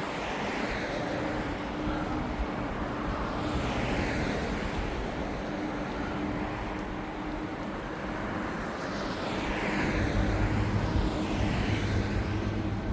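Road traffic: a few vehicles pass one after another, each swelling and fading as a whoosh, over a steady low hum. It grows a little louder with more low rumble about nine seconds in.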